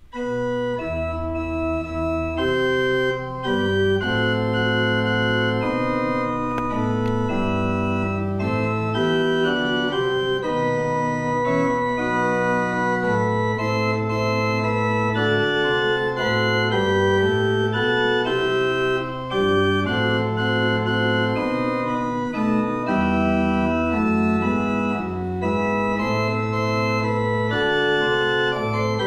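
Church pipe organ playing a hymn tune in sustained full chords, with the bass notes moving beneath the melody. It begins right at the start and plays on without a break.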